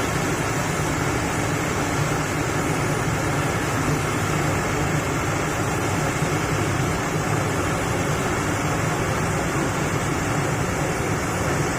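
Heavy diesel engine running steadily, a low, even rumble with no change in revs.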